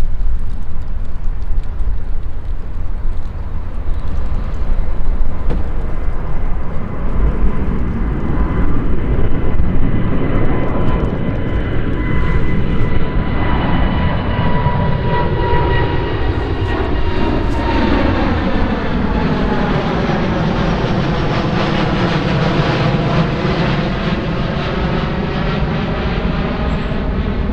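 Singapore Airlines Boeing 787's Rolls-Royce Trent 1000 turbofans at takeoff power, a deep rumble with a steady fan whine that fades out after about eighteen seconds. Through the second half the rumble takes on a sweeping, phasing sound as the aircraft moves past.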